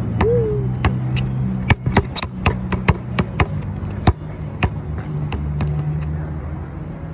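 Basketball dribbled hard on an outdoor court: sharp, irregular bounces about two a second, over a steady low hum.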